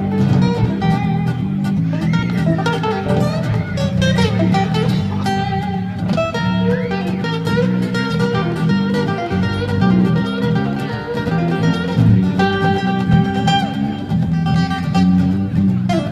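Live blues band playing an instrumental break through PA speakers: a guitar lead with bending notes over a stepping bass line.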